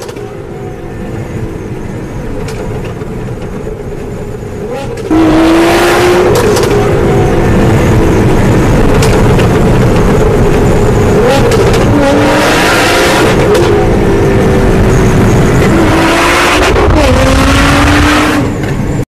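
Nissan GT-R R35's twin-turbo V6 through an Armytrix exhaust. It cruises for about five seconds, then suddenly goes to full throttle and turns much louder. The engine note climbs and drops back at each upshift, several times, before cutting off abruptly near the end.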